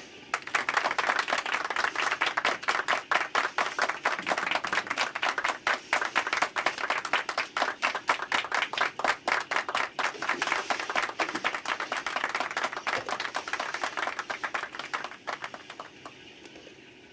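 Applause: many hands clapping in a dense, irregular patter that fades out near the end.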